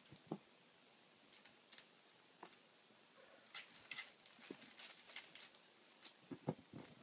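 Faint pattering and scuffling of kittens' paws on a padded pet bed and floor mats, with a run of light scratchy ticks midway and a few soft thumps near the end.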